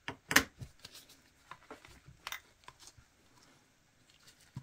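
Light handling noises of a small plastic dish-soap bottle and nail tools over a towel: a sharp click near the start, then scattered soft taps and rustles.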